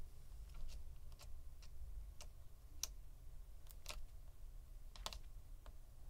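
Faint, irregular light clicks and ticks of a plastic spudger prying at the battery pull tabs along a MacBook Pro's battery and aluminium case, about eight scattered clicks over a steady low hum.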